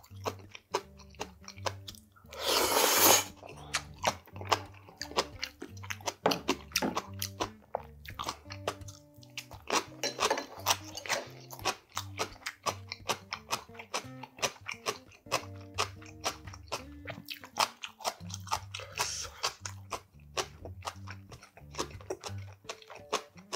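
Close-miked chewing of steamed monkfish (agujjim), with many crisp crunches and wet mouth clicks, over background music with a stepping bass line. About two and a half seconds in there is a short, loud rush of noise.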